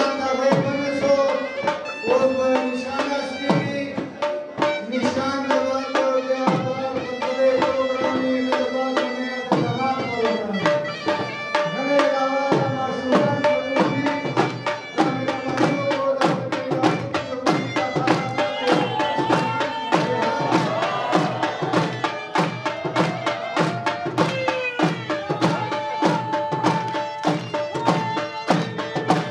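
Dhamaal music: a drum beaten in a steady rhythm under a held, wavering wind-instrument melody, the drumbeat growing denser about halfway through.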